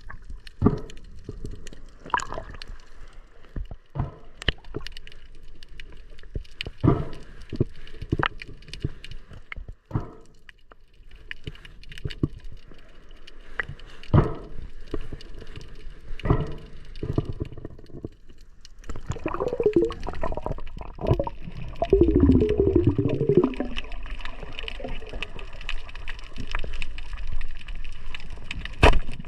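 Water gurgling and bubbling, with scattered sharp clicks and pops throughout and a louder stretch of wavering, bubbling gurgle about twenty seconds in.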